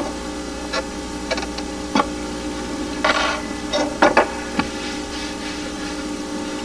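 Steady hum with scattered small clicks and knocks of food and plates being handled on a kitchen counter, and a short rustle about three seconds in.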